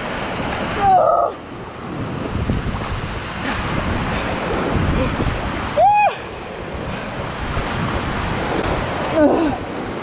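Steady rush of a waterfall and choppy pool water close to the microphone, with wind noise. Three short cries from a swimmer in the cold water break through: about a second in, around six seconds, and near the end.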